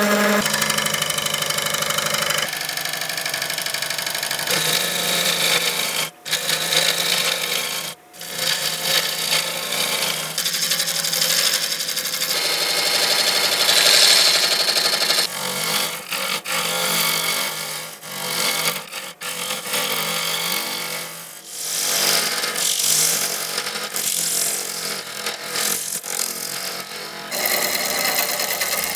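Wood lathe spinning a cast epoxy-resin-and-cork blank while a gouge cuts it, a steady hissing cut over the machine's hum. The sound breaks off briefly a couple of times.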